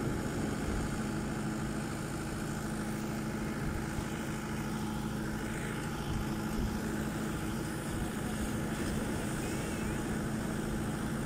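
Tractor engine running at a steady speed, its even hum unchanged throughout, with surf washing on the beach behind it.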